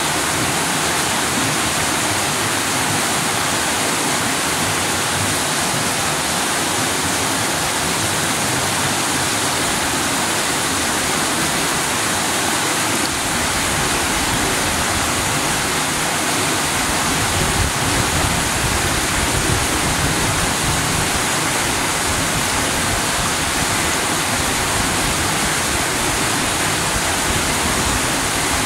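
Stream water rushing over rocks at a small waterfall, a loud, steady rush. A deeper low rumble joins about halfway through.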